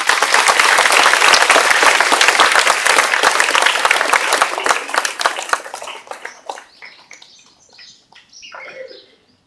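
Audience applauding: loud, dense clapping that thins out and dies away after about six seconds, with a brief voice near the end.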